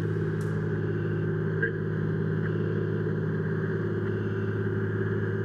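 Fire engine running steadily, an even low engine drone with no change in speed, and a light click about one and a half seconds in.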